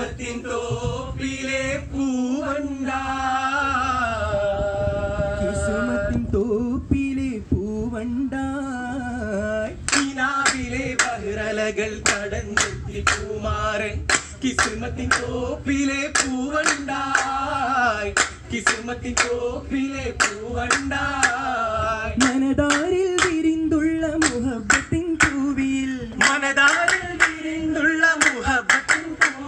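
Vattappattu, the Mappila wedding song of Kerala: a group of men singing together without instruments, with rhythmic hand-clapping that becomes dense and steady about a third of the way through.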